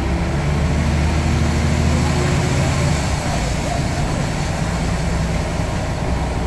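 Scania N94UD double-decker bus engine running with a steady low drone, mixed with vehicle noise.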